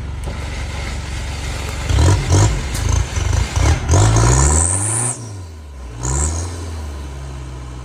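An off-road 4x4's engine idling, then revved hard in several quick bursts from about two seconds in, with a high rising whine over the last burst. A shorter rev follows about six seconds in, and then it settles back toward idle.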